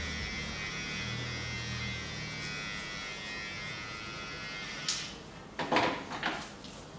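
A steady electrical hum that cuts off about five seconds in, followed by three quick, loud rustles of hands working the shoulders through a shirt.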